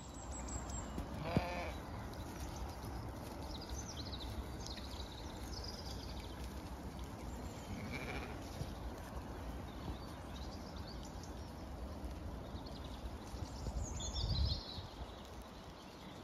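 Zwartbles sheep bleating: one short bleat about a second in, and fainter bleats later, over a steady low rustle. There is a brief louder noise near the end.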